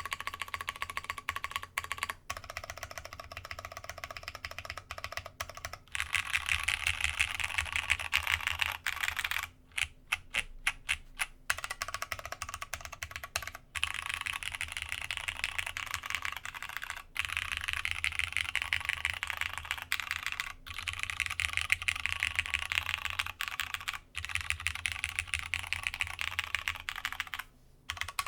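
Typing on a Masjewerke K-III custom mechanical keyboard with plateless Cherry MX Brown switches, GMK keycaps and a polycarbonate internal. Fast, continuous runs of keystrokes break about ten seconds in into a string of separate single key presses, then go back to fast typing.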